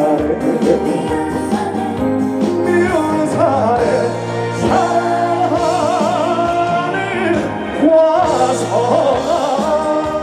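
Live trot band music with singing, the melody carried in long held notes with a wavering vibrato.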